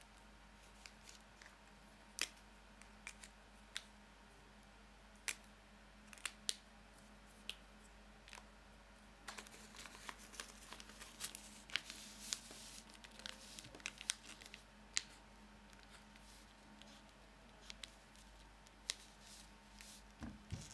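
Paper being folded and handled on a wooden tabletop: scattered light taps and paper rustles, with a stretch of denser scratching about ten seconds in as a pen draws on the paper.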